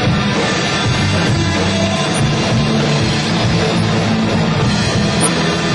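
Rock band playing live: electric guitars, bass and a drum kit, loud and continuous.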